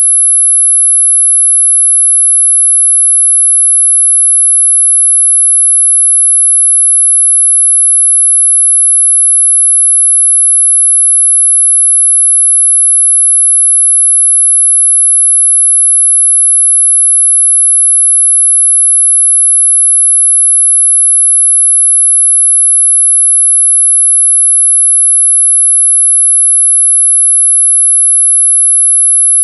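A synthesized 11 kHz tinnitus-masking tone: one pure, very high-pitched electronic tone held loud and steady, with no change in pitch or level.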